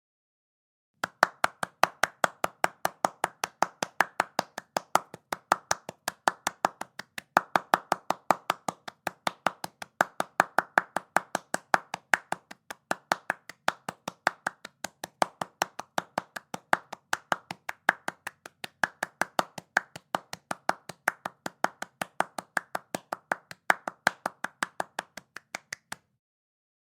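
One person clapping their hands quickly and steadily, about four claps a second. It starts about a second in and stops abruptly near the end.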